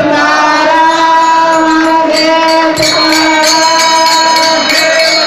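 Marathi devotional kirtan singing: one voice holds a long steady note, and about two seconds in a rhythmic clashing of small hand cymbals (taal) joins it.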